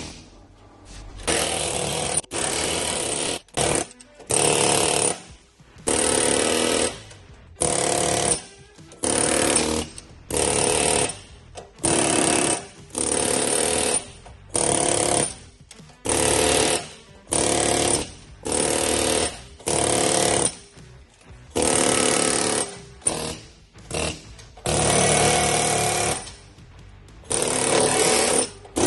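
Pneumatic air hammer (air chisel) hammering at a seized bushing in a dozer ripper box. It runs in about fifteen short bursts of one to one and a half seconds each, separated by brief pauses.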